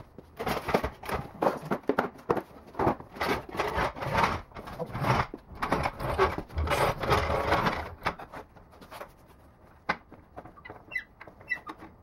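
Hydraulic floor jack being pumped by its long handle to lift a go-kart: a run of squeaks and clunks stroke after stroke, dying away about eight seconds in.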